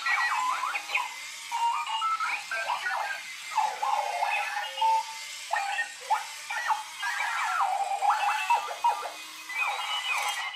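Clocky wheeled alarm clock sounding its alarm in demo mode: a continuous run of electronic chirps and beeps that slide up and down in pitch, cutting off suddenly at the end.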